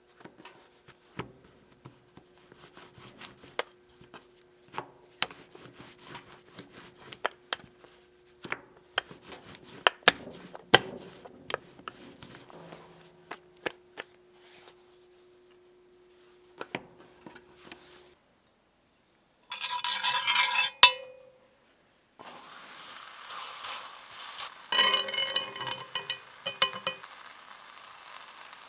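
Soft paratha dough being stretched, folded and patted on a countertop, with light taps and rubbing. After a short pause, the paratha starts sizzling in a hot cast-iron pan while oil is spooned over it.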